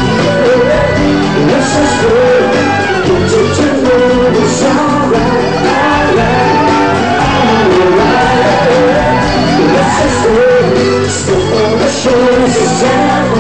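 Live rock band playing a song with a lead singer, loud and continuous.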